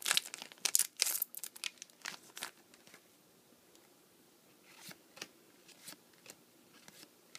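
Foil trading-card booster pack being torn open and crinkled for about two and a half seconds, then a few soft flicks as the cards inside are slid one behind another.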